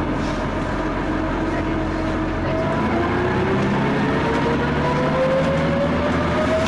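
Leyland double-decker bus's Leyland L10 six-cylinder diesel engine driving through its ZF gearbox. The engine note runs level at first, then climbs steadily through the second half as the bus accelerates.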